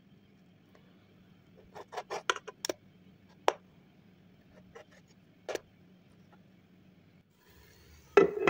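Metal slotted spatula clicking and scraping against a non-stick frying pan while carrot patties are turned, with a quick cluster of clicks about two seconds in and single clicks after. A louder knock comes near the end, over a faint steady hum.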